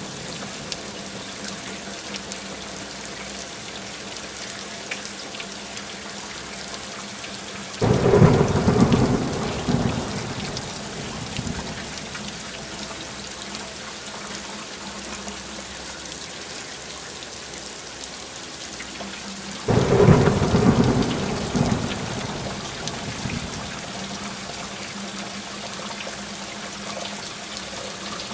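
Steady rain falling, with two rolls of thunder: one about eight seconds in and another about twenty seconds in, each starting suddenly and fading over a few seconds.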